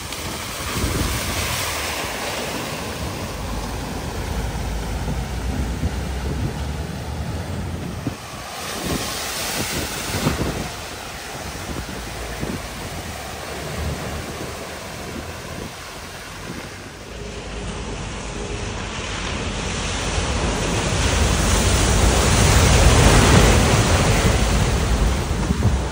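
Floodwater rushing and splashing, with wind buffeting the microphone; the noise swells a few times and is loudest near the end.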